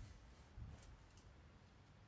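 Near silence: quiet room tone with a few faint, scattered ticks in the first second or so.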